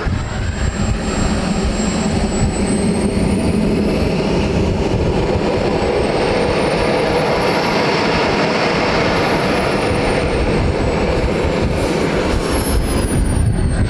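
Radio-controlled model jet's gas turbine running: a steady loud rush with a thin high whine that climbs slowly in pitch and then slides back down near the end.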